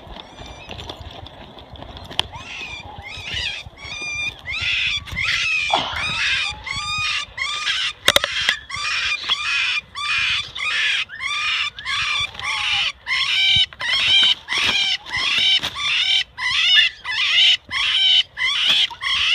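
An animal screaming in a steady series of shrill, high calls, about two a second, starting faintly a couple of seconds in and growing louder. A single sharp click comes near the middle.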